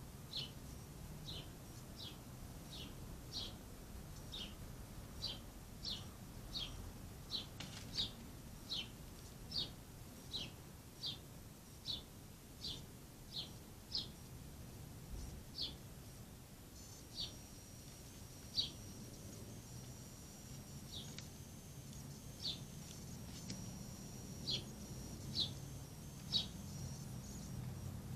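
A bird repeating one short, downward-sliding chirp over and over, roughly one or two a second, spacing out about halfway through. A thin, high steady tone joins in over the second half, over a low background hum.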